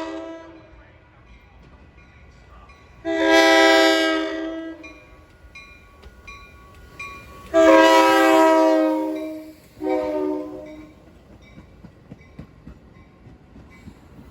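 Metra commuter locomotive's air horn sounding several chord blasts: one dying away at the start, another about three seconds in, then a long blast whose pitch drops as the train passes, followed by a short one. Between blasts a bell dings faintly at a steady beat.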